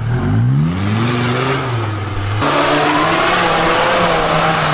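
Mercedes-Benz G-Class 300 GD's naturally aspirated three-litre five-cylinder diesel revving up sharply and held at high revs under load as the 4x4 works through a steep off-road obstacle. About halfway through the engine note shifts and a rushing noise of spinning tyres or churned ground joins it.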